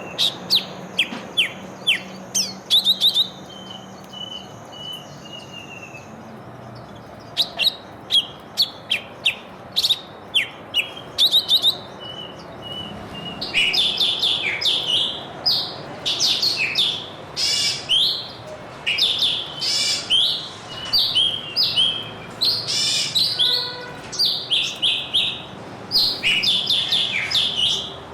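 Small songbirds chirping: many short, sharp chirps, sparse at first and becoming busy and overlapping from about halfway through.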